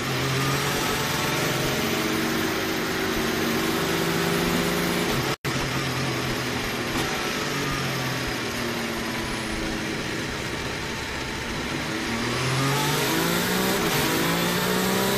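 Mercedes Formula 1 car's turbocharged V6, heard from the onboard camera, running in first gear along the pit lane with its pit-speed limiter not engaged. The engine note holds fairly steady, drops out briefly about five seconds in, then rises sharply near the end as the revs climb under throttle.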